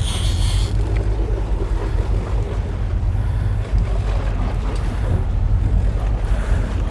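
Steady low rumble of a sportfishing boat's engine, with wind buffeting the microphone and water rushing along the hull. A brief hiss at the very start.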